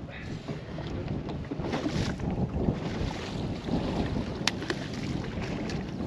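Wind blowing across the microphone, with waves lapping at the boat, and a single sharp click about four and a half seconds in.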